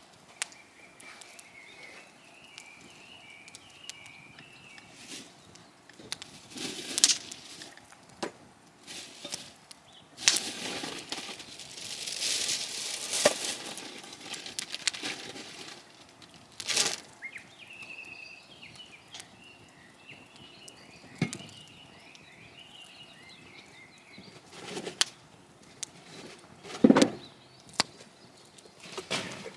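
Birds singing faintly in the background, with scattered knocks, clicks and a few seconds of rustling, the loudest a thump near the end.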